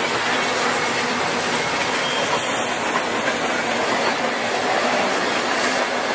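Double-stack intermodal freight train rolling past close at speed: a steady, loud rush of steel wheels on the rails and wind off the passing container cars.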